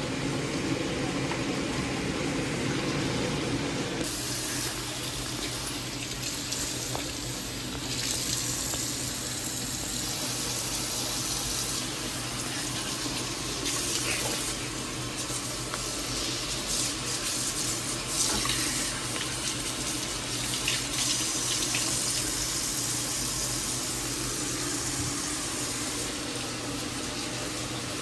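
Kitchen tap running steadily into a sink while things are washed under it, with a few light knocks from items in the sink.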